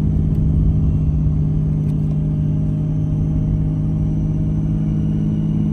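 A 6.7L Cummins diesel in a Ram 2500, heard steady in the cab at about 2,000 rpm with its VGT turbo's exhaust brake engaged. The brake is holding the truck and camper trailer back on a steep downgrade.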